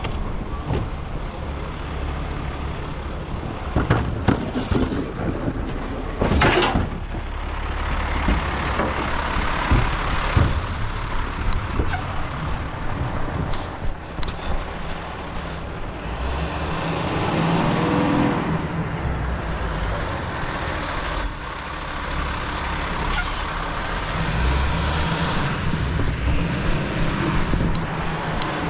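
Garbage truck engine running steadily, with several clanks and knocks and short hisses of air. One hiss is louder, about a quarter of the way in, and a brief whine rises and falls near the middle.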